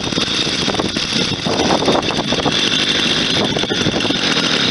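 Small two-stroke engine of a McCulloch Eager Beaver chainsaw running after a cold start, then cutting out at the end: the engine is cold and needs about three-quarter choke to keep running.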